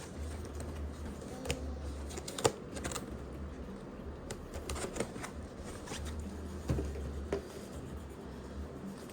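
Light handling noises of small plastic toy pieces and markers on a table, with scattered clicks and taps over a steady low hum.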